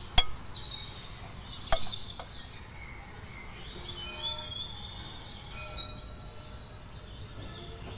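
Small birds chirping and whistling, scattered short calls throughout. Two sharp clinks of a metal spoon against a ceramic bowl stand out, one right at the start and another just under two seconds in.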